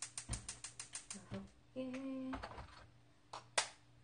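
Gas stove burner's igniter clicking rapidly, about six clicks a second, as the burner is lit; the clicking stops about a second and a half in. A brief low hum follows, and a single sharp click near the end.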